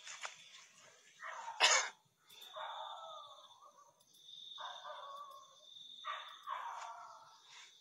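A steady high-pitched insect trill, typical of crickets in night grass, with several short breathy noise bursts over it and one short sharp burst, the loudest sound, about two seconds in.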